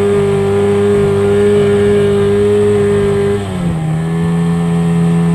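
Suzuki outboard motor running hard, driving a small boat at speed. About three and a half seconds in, its note dips and settles a little lower.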